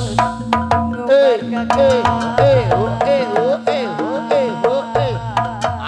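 Live jaranan accompaniment music: hand drums and metal gong-chime percussion strike a fast, steady beat. Over it a wavering melody bends up and down in pitch, and a low tone holds steady underneath.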